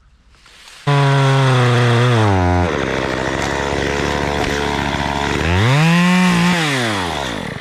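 Gas chainsaw starting loud at high revs about a second in, its pitch sagging as it bogs down into a cut, then several seconds of the chain cutting through wood. Near the end it revs up again and winds down to a stop.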